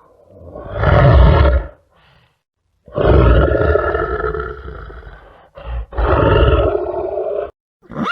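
A big cat roaring: three long, rough roars, the middle one the longest and fading away, with a short grunt just before the last.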